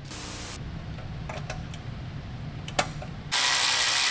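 Right-angle die grinder run at the turbo's hot-side flange: a short blip at the start, a few light clicks, then about three seconds in it starts running steadily, a loud hiss with a high whine.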